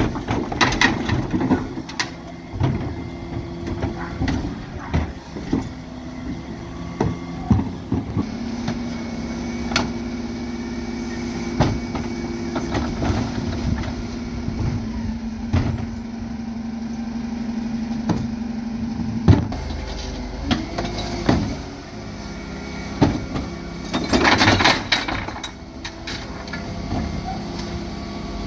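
Dennis Elite 6 refuse truck working at the kerb: the diesel engine runs on while the Terberg OmniDek rear lift raises and tips wheelie bins, with repeated clanks and knocks of bins against the lift. A steady hum holds through the middle and stops with a knock, and a short rushing noise comes near the end.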